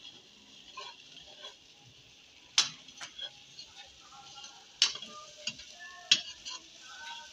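A steel ladle stirring tomato masala frying in a steel kadhai: a faint steady sizzle, with the ladle clinking against the pan several times, three of the clinks sharp.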